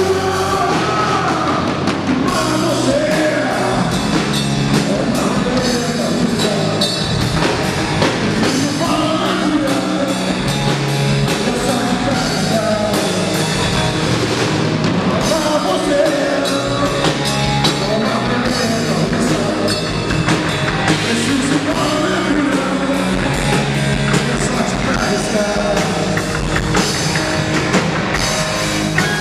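Live rock band playing loudly: distorted electric guitar, bass guitar and a drum kit, with no break.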